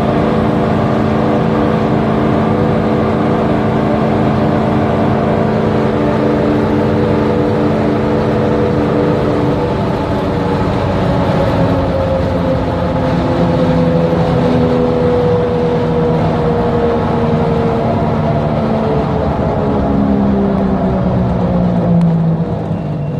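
1975 Ford Bronco's engine running under way, heard from inside the cab: a steady drone for about ten seconds, then the revs fall slowly as the truck eases off and slows.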